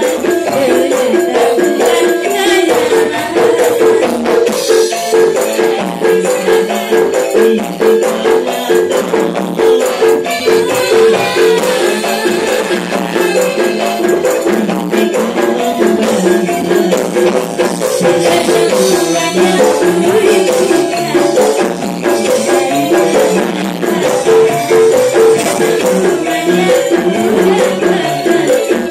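Javanese gamelan music, amplified: a busy, steady repeating figure on the ensemble with percussion, and female sinden voices singing over it into microphones.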